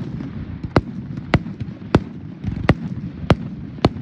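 Fireworks going off: a string of sharp bangs about every half second to second, with smaller pops between them, over a steady rumbling haze of crackle and echo.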